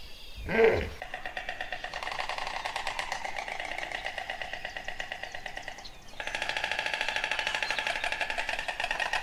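A hippopotamus call ends with one loud grunt about half a second in. A steady, fast-pulsing buzz follows and gets louder about six seconds in.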